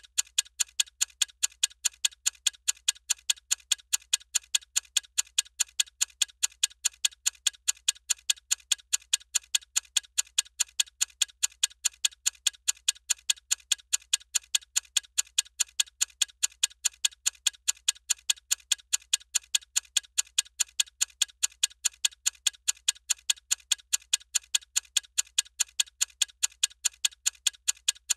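Bomb timer ticking: sharp, evenly spaced ticks, several a second, at a steady pace and level throughout.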